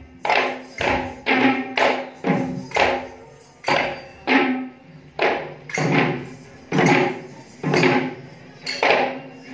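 Several Kandyan geta bera drums played by hand in unison, sharp ringing strokes that come in a quick run over the first three seconds, then settle to a steady beat of about one stroke every 0.8 s.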